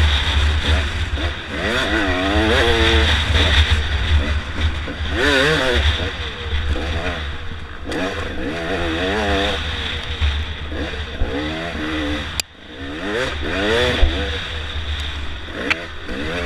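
Dirt bike engine revving up and down again and again as the rider works the throttle, heard from the rider's helmet. The engine note drops off suddenly for a moment about twelve seconds in, and a couple of sharp knocks come near the end.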